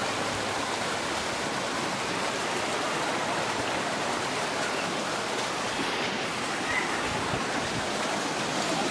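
Flash floodwater rushing steadily.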